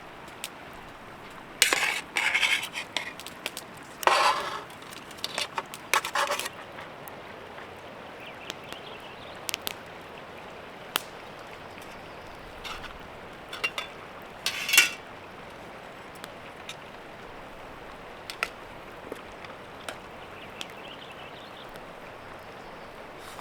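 Metal utensils clinking and scraping against camp cookware and dishes in several short bouts of clatter, with single ticks in between over a steady faint hiss.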